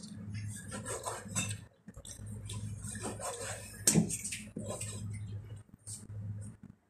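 Large kitchen knife cutting through baked pork neck on a cutting board: scattered soft knocks and scrapes of the blade, with one sharper knock about four seconds in, over a steady low hum.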